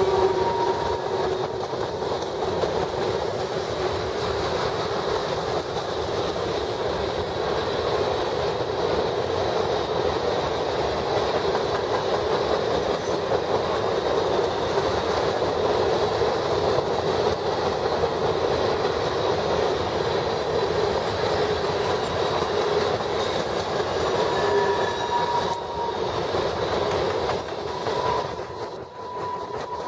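Freight train's covered hopper cars rolling past: a steady rumble and rattle of steel wheels on the rail, with the clickety-clack of wheels over the joints. Thin steady wheel squeals come and go, clearest near the end, where the noise briefly drops.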